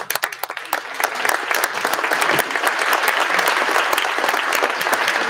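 Audience applauding, beginning with scattered claps and building within about a second into steady applause.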